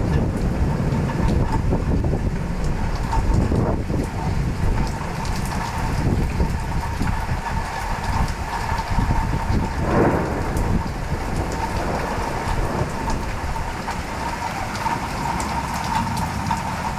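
Heavy rain pouring down in a thunderstorm, with thunder rumbling low underneath; a faint steady tone runs through it.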